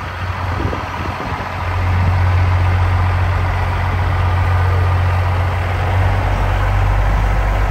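A motor vehicle's engine idling close by, a steady low hum that grows louder about a second and a half in and then holds.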